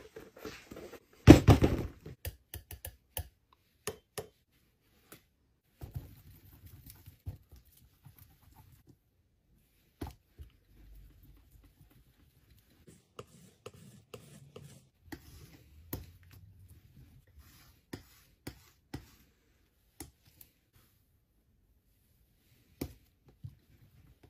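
Palette knife scraping and tapping against a paint palette as thick paint is mixed and spread: scattered sharp clicks and soft scrapes, with a louder noisy scrape lasting under a second just over a second in.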